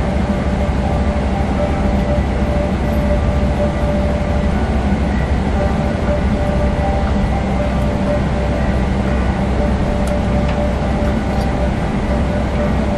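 Steady cabin noise inside a Boeing 777-300ER airliner: a deep rumble of its GE90 engines and airflow with a few steady whining tones over it.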